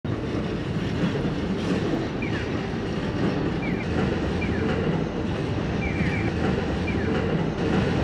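Busy city crossing: a train runs over an elevated railway bridge with a steady low rumble over the traffic. Short falling electronic chirps from pedestrian crossing signals repeat every second or so, sometimes several at once.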